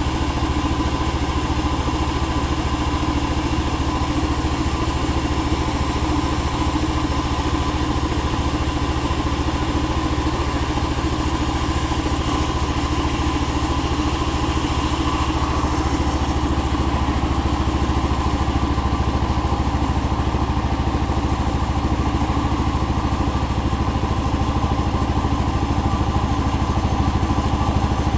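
Small two-stroke chainsaw engine running steadily while sawing hardwood, with no pauses.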